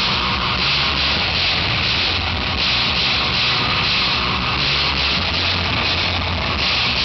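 Loud live band music in a noise-heavy passage: a steady wall of harsh distorted noise over a low droning hum, with no break.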